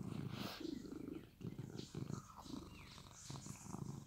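Domestic cat purring close by in rhythmic bouts while being brushed with a wire slicker brush.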